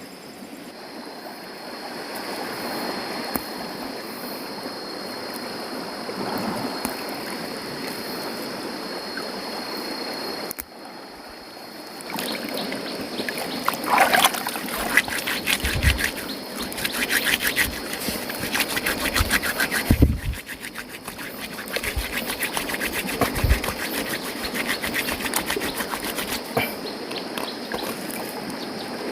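Running river water, steady at first with a thin high-pitched whine above it, then louder and more splashy from about twelve seconds in, with a few dull low thumps.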